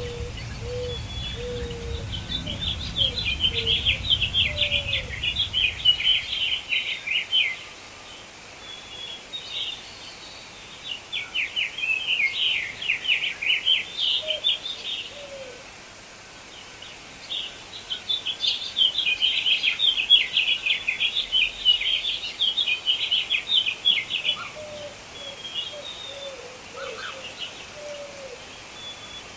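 Songbirds singing: bursts of rapid, high chirping trills a few seconds long, three or four times, with scattered soft lower notes between them. A low rumble under the song stops about seven seconds in.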